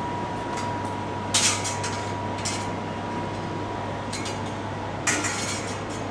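Steady electric hum with a thin high tone at the platform beside the standing 285-series Sunrise Express train, broken by several short sharp metallic clinks, the loudest about a second and a half in and again about five seconds in.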